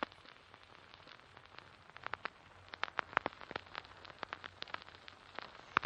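Faint irregular crackling: scattered sharp clicks and pops over a light hiss, stopping abruptly.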